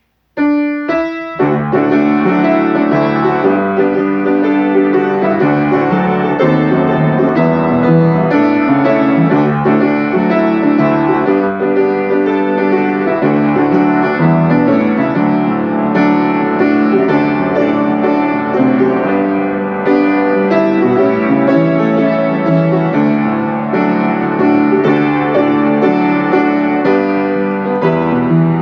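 Solo piano music: a few opening chords, then a continuous flowing melody over chords.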